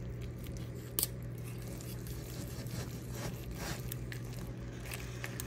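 A fork and a spatula tapping and scraping against a nonstick frying pan as they cut into the food, with one sharp click about a second in, over a steady low hum.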